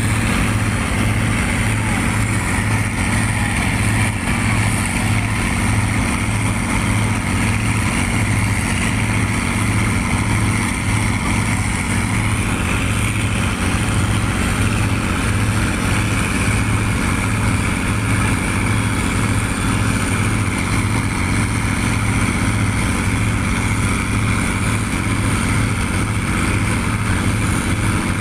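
Boat engine running steadily at speed, a loud low drone with an even pulse, over the rush of water and wind along the hull.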